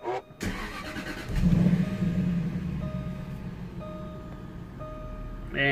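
Jaguar XK's 4.2-litre V8 cranked by the starter, catching about a second and a half in with a short rev, then settling to idle. Over the idle a warning chime repeats about once a second.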